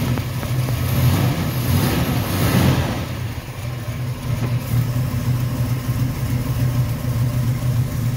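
The V8 engine of a 1967 Plymouth Satellite idling steadily, briefly louder about one to three seconds in.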